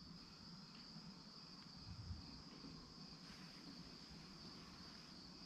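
Faint, steady chorus of crickets trilling on one high pitch. A soft low bump about two seconds in.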